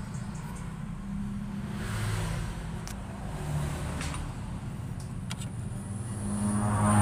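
Passing road vehicles: a steady engine rumble that shifts in pitch, with one vehicle growing louder near the end. A few sharp metallic clicks sound in between.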